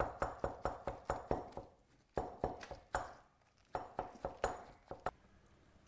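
Chef's knife chopping cooked spinach on a cutting board: quick, even strokes about five a second, in three runs with brief pauses between.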